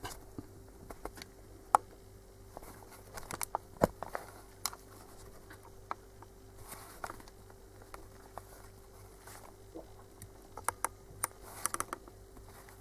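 Light, irregular clicks, taps and scrapes of a small metal solenoid valve and a digital microscope being handled on a workbench, with the sharpest tap about four seconds in and a quick cluster near the end, over a faint steady hum.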